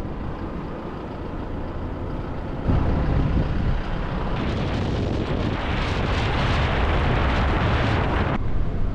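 Vehicle driving at road speed: a steady rumble of road and wind noise that gets louder a few seconds in, with a broad rushing hiss building over the next seconds and cutting off suddenly near the end.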